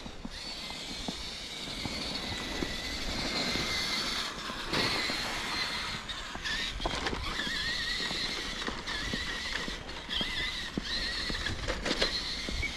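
Electric RC truck's motor and gear drive whining, the pitch wavering up and down with throttle, with scattered crunches from the tyres in snow.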